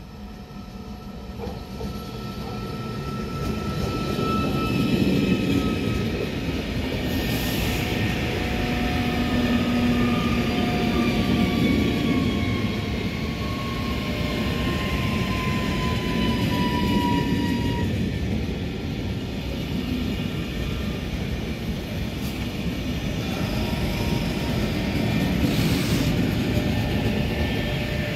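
Italo high-speed electric train passing close by: the rolling rumble of its wheels builds over the first few seconds and then holds, with faint whining tones sliding slowly down in pitch. Two short high hisses stand out, about seven seconds in and again near the end.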